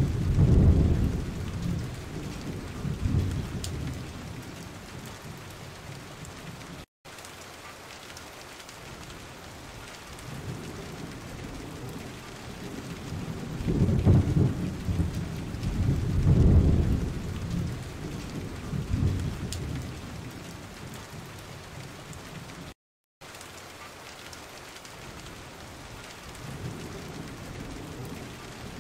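Steady rain hiss with thunder rumbling several times, loudest about halfway through. The sound drops out completely for a moment twice.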